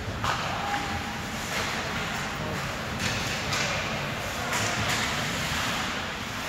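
Ice hockey play in a rink: several short scraping hisses of skates cutting the ice and clacks of sticks on the puck, over a low murmur of spectators.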